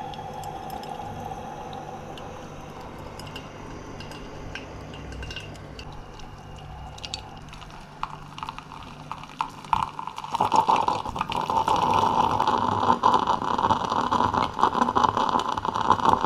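Stovetop espresso maker (moka pot) brewing, coffee running from its spout into an enamel mug with a faint steady whine and scattered ticks. About ten seconds in it turns to loud sputtering and gurgling as steam forces the last water through, the sign that the brew is nearly done.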